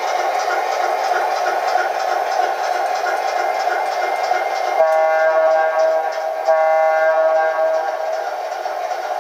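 Sound system of a 3-rail model diesel switcher locomotive: a steady recorded diesel engine rumble, with the horn sounded twice about five seconds in, each blast lasting a second or more.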